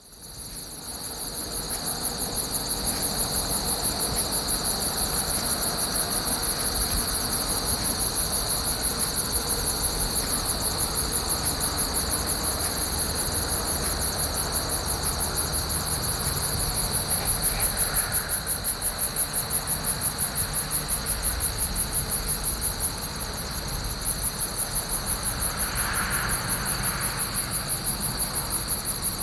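Crickets chirping in a steady, fast pulsing chorus over a low rumble of distant road traffic. The sound fades in over the first couple of seconds.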